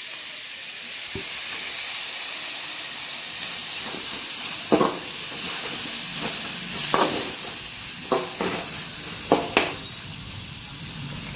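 Chopped tomatoes, shallots and ginger-garlic paste frying in hot oil, a steady sizzling hiss. From about four and a half seconds in it is broken by half a dozen sharp scraping knocks of a steel ladle stirring against the pan.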